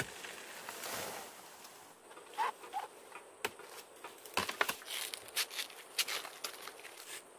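Banana plant stalk and leaves rustling and crackling as they are handled, with scattered sharp snaps and knocks. Two short chirps about two and a half seconds in.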